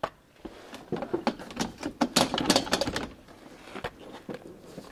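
The last 7 mm bolt being taken out of a car's plastic under-engine skid plate: a run of quick, irregular mechanical clicks and plastic rattles, busiest in the middle.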